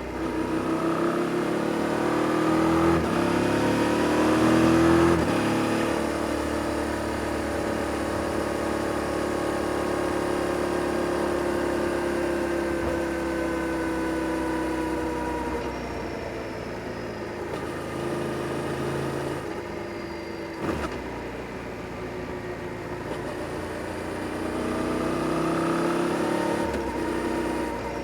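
Yamaha Tracer 7 GT's 689 cc parallel-twin engine through its stock exhaust, heard while riding. It rises in pitch through the first few seconds with short breaks like upshifts, holds a steady cruise, then winds down as the throttle is rolled off. There is a brief knock past the middle, and it revs up again near the end.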